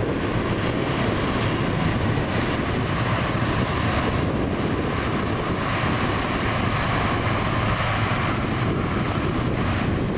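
A train passing at speed: steady rolling noise of wheels on the rails.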